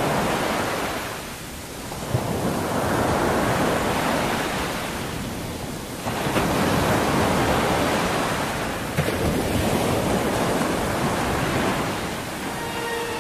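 Ocean surf: a steady rushing wash of waves that swells and ebbs about three times.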